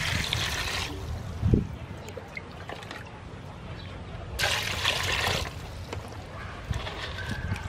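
Water poured from a scoop into a basin of mantis shrimp: two splashing pours of about a second each, one at the start and one about four and a half seconds in. A dull knock comes between them, about a second and a half in.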